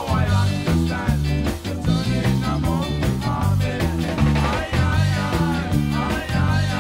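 A ska song with singing, drums and a busy bass line of short stepped notes, with an electric bass plucked along with the record.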